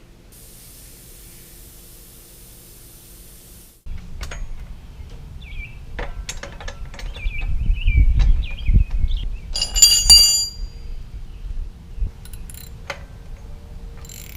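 Air hissing steadily out of a BMX inner tube for about three and a half seconds as it is let down. Then come handling noises on the bicycle wheel: clicks, squeaks and one bright metallic ring about ten seconds in.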